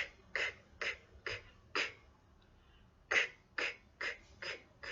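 A person repeatedly saying the unvoiced phonics sound 'k', a short clipped burst about twice a second, in two runs with a pause of about a second and a half between them.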